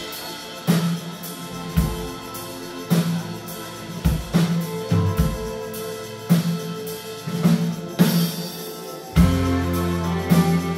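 Live rock band playing: sustained guitar chords with a drum kit hitting about once a second. About nine seconds in the full band comes in louder, with a heavy bass line.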